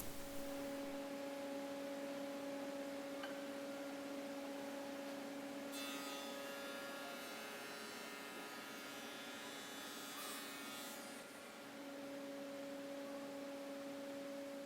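Woodworking machine running with a steady electric hum. From about six to eleven seconds a higher whine joins it, as if a workpiece is being cut, before the hum dips briefly and settles again.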